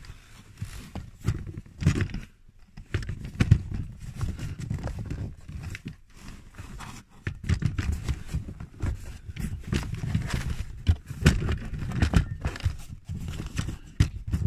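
Large hard-plastic footwell trim cover of a Peugeot 308 being handled and pressed back into place: irregular knocks, scrapes and clicks of plastic against plastic and carpet.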